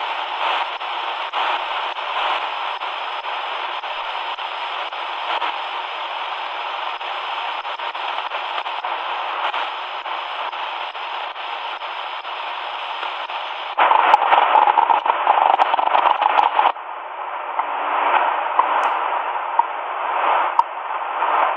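XHDATA D-219 shortwave portable radio giving a steady hiss of static while being tuned across the 4.75–5.06 MHz shortwave band. About 14 seconds in the noise jumps louder and rougher as the tuning crosses a signal, then it settles into a crackly, changing mix of static.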